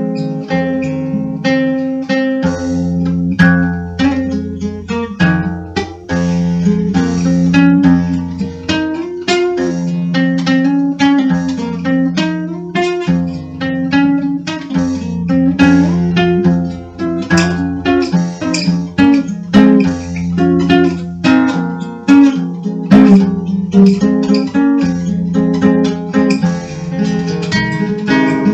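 Music: acoustic guitar plucked and strummed, with a held low bass line beneath the notes.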